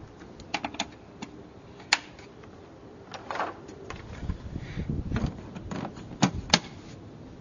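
Plastic clicks and snaps as a plastic cowl cover panel in a car's engine bay is handled and its clips are pushed home, with duller handling knocks in between. The sharpest snap comes about two seconds in, and two more come close together near the end.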